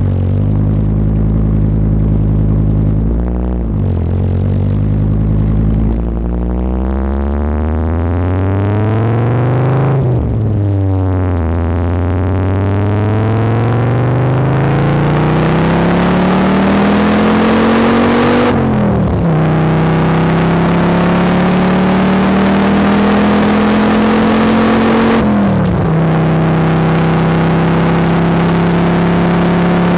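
Chevy pickup truck's engine heard from inside the cab, accelerating and shifting up through the gears. The engine note climbs and then drops sharply at each shift, four times, with each later gear climbing more slowly.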